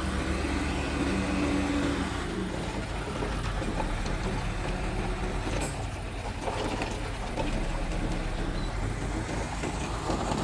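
Mitsubishi bulldozer's diesel engine running steadily, with a sharp click about five and a half seconds in.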